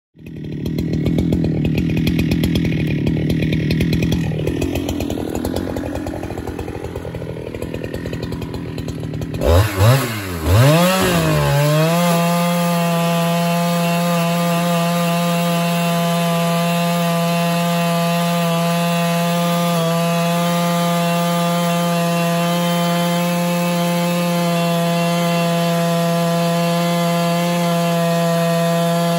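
Husqvarna 395XP two-stroke chainsaw on an Alaskan mill ripping a fir log lengthwise. For the first several seconds the sound is rough and uneven. Around ten seconds in the engine note swings up and down a few times, then settles into a steady high full-throttle note under load as the mill is pushed along the cut.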